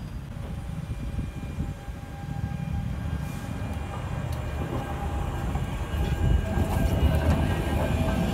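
Low-floor electric tram rolling slowly past at close range: a low rumble of wheels on the rails, with a steady whine from its electric drive that grows louder toward the end as it moves off.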